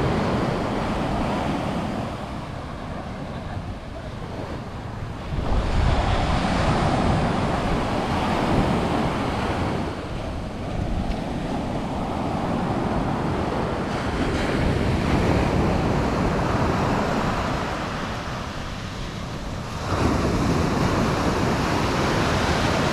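Sea waves breaking and washing up on a sandy beach, swelling and easing every few seconds, with wind buffeting the microphone.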